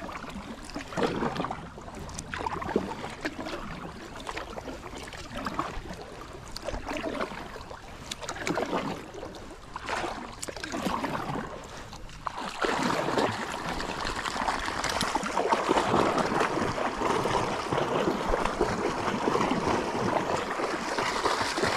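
Kayak paddle strokes swishing in the river, one every second or two, then from about halfway through a steady rush of moving water.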